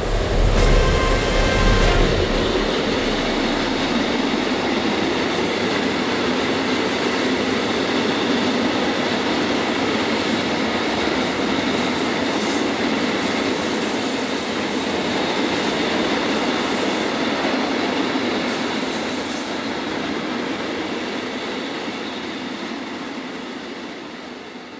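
Freight train of tank wagons rolling past behind an electric locomotive: a steady rumble of wheels on rail, with a thin high whine in the first two seconds and brief high wheel squeals later on. The sound fades away over the last few seconds.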